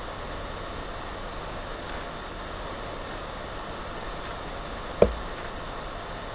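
Steady background hiss with faint high steady whine lines, broken about five seconds in by a single short sharp knock.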